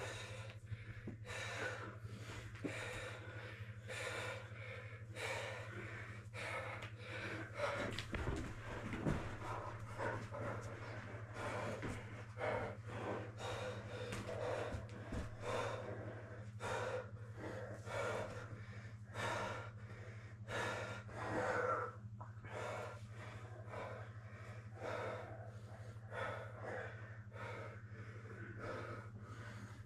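Grapplers breathing hard and gasping during a jiu-jitsu roll, short breaths following one another about once a second, over a steady low hum.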